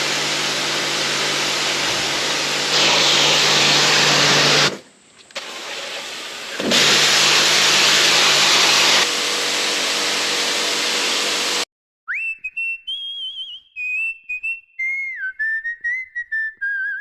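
Gerni Super 130 electric pressure washer running, its high-pressure jet hissing on concrete over a steady motor hum. The spray stops briefly about five seconds in and is louder in two stretches. The washer cuts off abruptly two-thirds of the way through, and a whistled tune of stepping, wavering notes follows.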